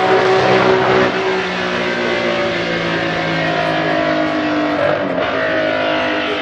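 Honda RA301's 3-litre V12 Formula One engine running at high revs, its pitch sinking slowly, with a brief break about five seconds in.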